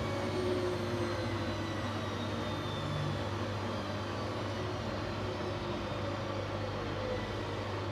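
Siemens Siwamat iQ 716 washing machine's drum motor winding down, a steady low hum under a faint whine that slowly falls in pitch as the drum slows.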